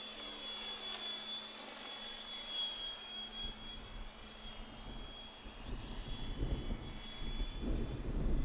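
Electric RC helicopter's motor and rotor whining steadily high-pitched in flight, with faint pitch glides as it moves about. A low rumbling noise builds in from about halfway through and grows louder.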